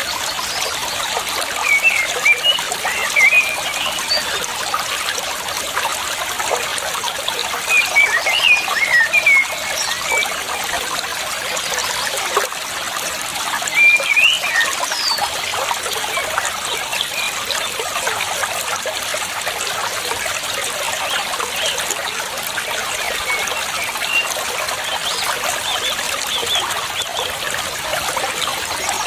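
Water trickling steadily, with a small bird chirping in short bouts several times over it.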